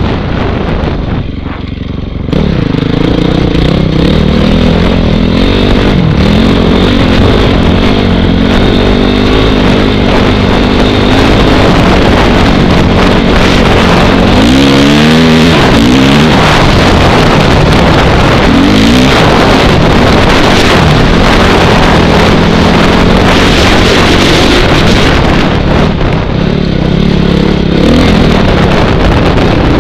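2006 Honda CRF450R's single-cylinder four-stroke engine through an FMF full exhaust system, running under way as the dirt bike is ridden. The throttle eases off briefly near the start, then the engine holds a fairly steady note, with a few quick rises and falls in pitch about halfway through. Wind buffets the microphone throughout.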